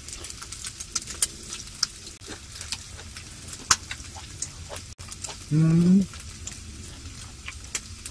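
Makchang and garlic sizzling on an electric grill plate, with a steady hiss and irregular sharp pops and crackles of fat. About five and a half seconds in, a brief rising 'mm' from a person's voice is the loudest sound.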